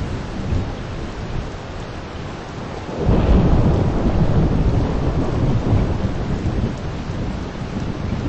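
Steady heavy rain with a roll of thunder that breaks in about three seconds in and rumbles on, slowly fading.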